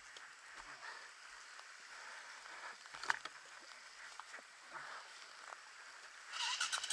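Faint scuffs and clicks of gravel and stones as a dirt bike is handled on a rocky track. About six seconds in, the dirt bike's engine starts and runs with a fast, even beat.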